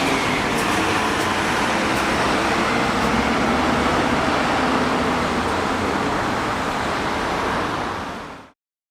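Steady rolling noise of a passing vehicle, with a few faint clicks in the first two seconds, fading out near the end.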